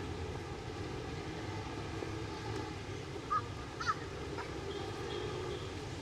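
Steady low city street hum, with two short, sharp bird calls about three and four seconds in.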